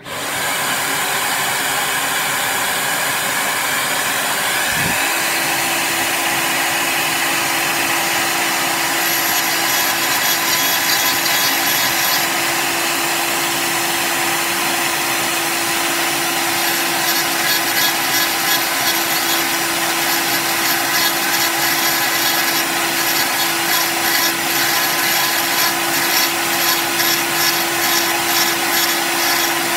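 A vacuum cleaner switches on and runs steadily at the nozzle beside the work. About five seconds in, a Dremel rotary tool joins with a steady whine. From about nine seconds its bit grinds into the epoxy resin of a Dallas DS1216 SmartWatch module in short, repeated passes, cutting through the buried battery strap.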